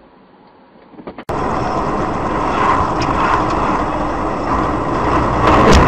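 Steady road and engine noise of a moving vehicle as a dashcam picks it up, starting abruptly about a second in, with a sharp knock near the end.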